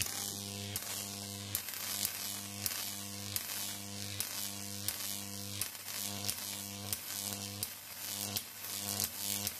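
Jacob's ladder arc from a 10 kV neon sign transformer, buzzing and hissing steadily. A sharp snap comes about every three-quarters of a second as the arc climbs the wires, breaks and re-strikes at the base.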